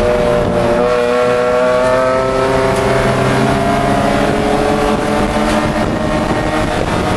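Pro3 race car's BMW E30 straight-six engine heard from inside the cockpit, running hard at high revs over road and wind noise. Its pitch climbs slowly for the first few seconds as the car accelerates, then holds steady.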